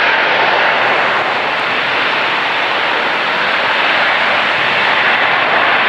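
Airbus A350's Rolls-Royce Trent XWB turbofans running with a steady, even jet rush.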